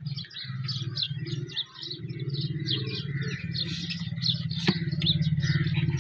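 Ruston diesel engine running with a steady, evenly pulsing low beat that grows louder toward the end, one sharp click near the end. Birds chirp throughout.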